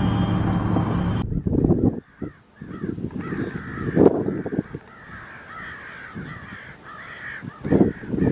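A flock of American crows cawing, many calls overlapping, with a few louder caws close by. A steady vehicle rumble cuts off about a second in.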